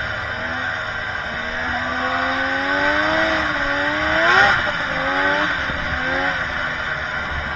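Snowmobile engine running under throttle while riding, its pitch rising to a peak about four seconds in and then dropping back, over a steady rushing noise from the track and snow.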